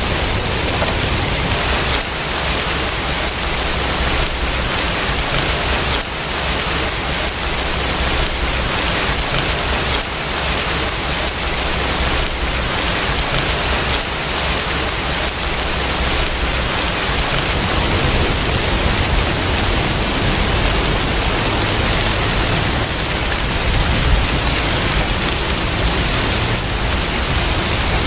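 Steady rain: an even, continuous hiss with a low rumble underneath that grows stronger in the second half.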